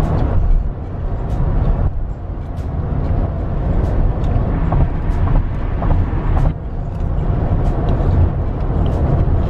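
Steady low rumble inside a car, as of the engine or air blower running, with scattered small clicks on top. The level shifts a few times.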